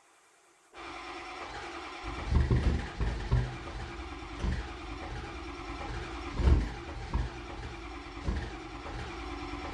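Ford 6.0 Power Stroke V8 turbo-diesel cold-starting after a week unused: it cranks from about a second in, catches about two seconds in and runs unevenly, with irregular heavy low thumps. The owner reckons it is due for new injectors and glow plugs.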